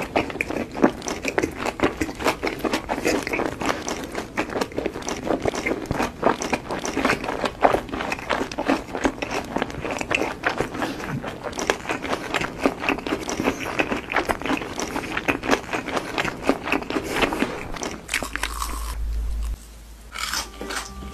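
Close-up crunching and chewing of a cheese-filled fried stick with a crunchy red crumb coating: sharp, dense crunches from each bite and chew. Near the end the crunching stops, a low hum comes in, and a few steady tones begin.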